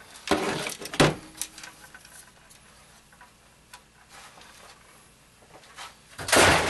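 Handling clatter from pulling an iMac screen apart: the white plastic front bezel and the metal-framed LCD panel knock and scrape on a wooden workbench. There is a sharp click about a second in and a louder burst of clattering near the end.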